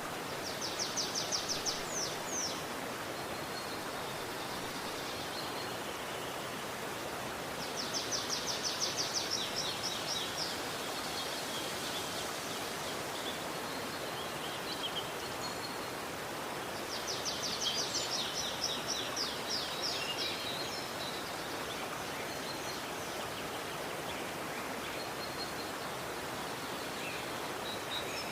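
Steady rushing of a flowing river. A bird sings three times over it, each phrase a rapid high trill of two or three seconds.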